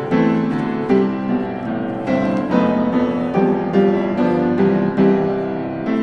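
Background piano music, a gentle melody of struck notes played at an even pace.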